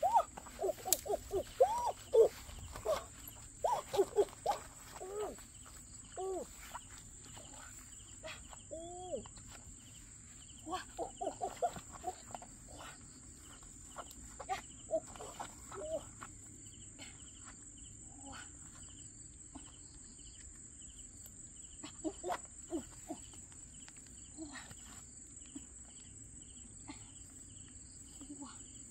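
Steady high insect drone from crickets, with a fast pulsed cricket chirp joining from about halfway through. In the first dozen seconds, and briefly again later, quick runs of short rising-and-falling animal calls stand out above it.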